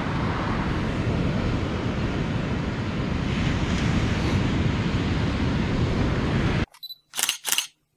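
Ocean surf breaking on a sandy beach, with wind buffeting the microphone, a steady rush. It cuts off suddenly near the end, followed by two brief swishes.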